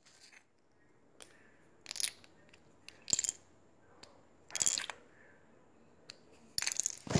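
Plastic Lego bricks being pulled off and handled, clicking and clattering in four short bursts, the longest near the end.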